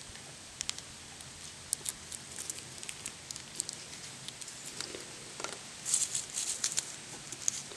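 Faint crinkling and small clicks of a plastic butter packet being squeezed into a cored pear, with a denser run of crackles about six seconds in as the pear is handled.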